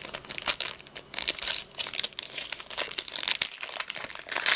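A trading-card pack wrapper crinkling and tearing as it is opened by hand, with dense irregular crackles.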